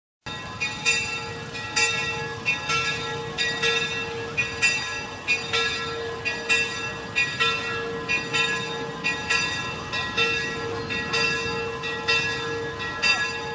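Old church bell struck over and over, about one stroke a second, each stroke ringing on into the next over a steady hum.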